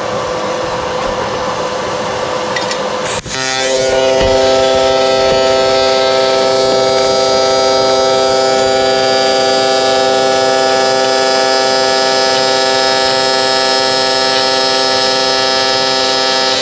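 AC TIG welding arc on aluminium, set to 130 Hz with the balance turned down to 30%. After about three seconds of hiss, the arc strikes with a sharp crack and then buzzes steadily at one even pitch.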